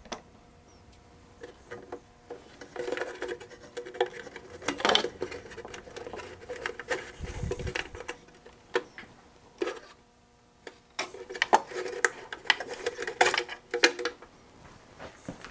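Hands handling parts inside an opened Osborne 1 computer: clicking and rattling of wiring, connectors and the metal and plastic chassis, in two busy spells with scattered clicks between. A dull low thump about halfway through.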